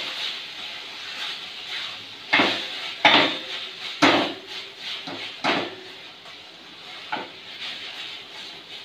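Chicken pieces stir-fried in a kadai: a spatula knocks and scrapes against the pan about five times, a second or so apart, over a steady sizzle of frying in hot oil.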